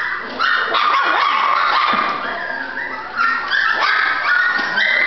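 Young golden retriever puppies whining and yelping in high-pitched cries, almost without a break, sometimes more than one at once.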